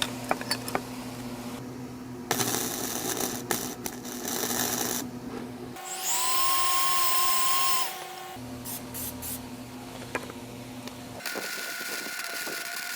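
Handheld electric grinder cleaning up steel exhaust pipe. A stretch of grinding noise starts about two seconds in; then the motor runs up to a steady whine for about two seconds and winds down.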